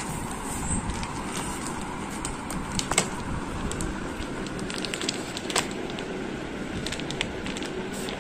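Empty plastic chocolate wrapper crinkling and crackling as a Lhasa Apso tears at it and licks inside it, with irregular sharp crackles; the loudest come about three seconds and five and a half seconds in.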